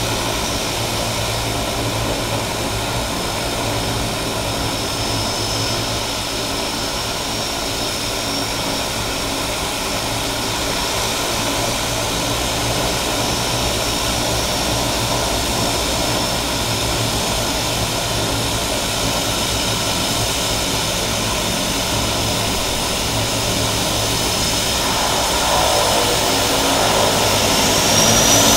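A de Havilland Canada Twin Otter turboprop seaplane on floats taxiing on the water: a steady propeller and engine drone with a high turbine whine. It grows louder near the end as the plane approaches, and the whine rises in pitch.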